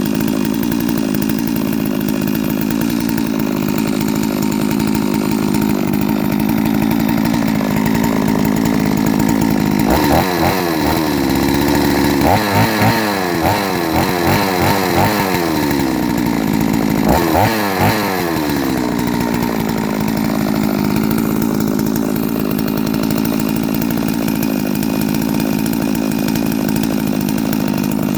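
Freshly rebuilt, ported Neo-Tec NS872 two-stroke chainsaw on its first run, idling steadily. About ten seconds in it is revved in a series of quick throttle blips, rising and falling, for about eight seconds, then settles back to a steady idle.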